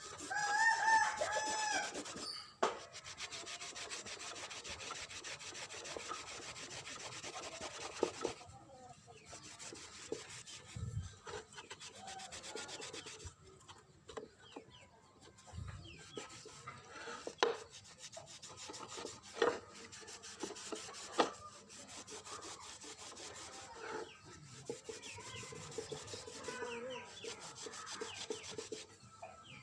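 A rooster crows near the start. A steady rasping rub follows for several seconds, then scattered sharp clicks and knocks.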